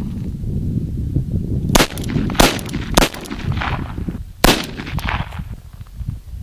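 Blank revolver (RG-59 five-shot, .380 blanks) fired four times in quick succession, the first three about half a second apart and the fourth about a second and a half later, each a sharp crack with a short echoing tail.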